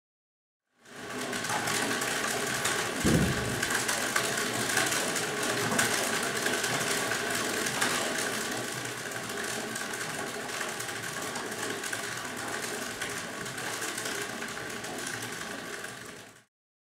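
Zoetrope drum spun by hand, turning with a steady mechanical whir, with one thump about three seconds in; the whir gets a little quieter in the second half.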